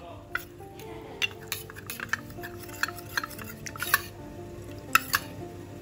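Metal spoon stirring an arrowroot-and-water slurry in a stainless steel bowl: irregular clinks and scrapes of the spoon against the bowl, the sharpest about five seconds in.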